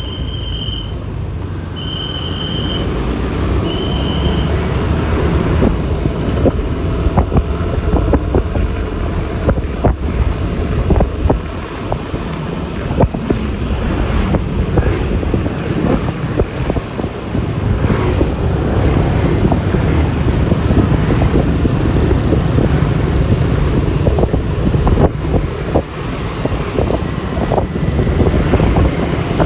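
Wind rumbling on the microphone over road and traffic noise during a ride on a Yamaha Lexi LX 155 scooter. Three short high beeps about two seconds apart sound at the start.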